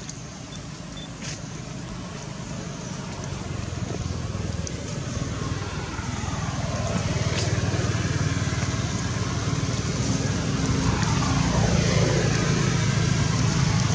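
A motor vehicle's engine hum, low and steady, growing louder throughout.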